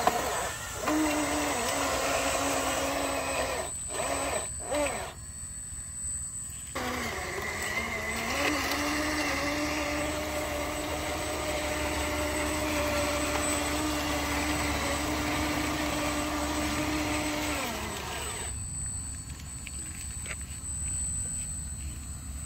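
Small electric motors of radio-controlled model construction vehicles whining steadily. Two sharp knocks come near the first stop, after about five seconds. The whine starts again with a slight rise in pitch and cuts off about three quarters of the way through.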